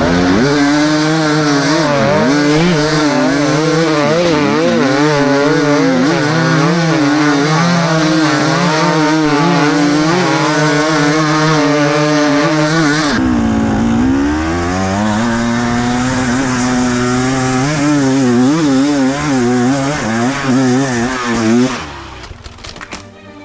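Enduro dirt bike engine revving hard under load, its pitch rising and falling unevenly with the throttle. About halfway through, the revs drop and then climb again. Near the end the engine sound falls away.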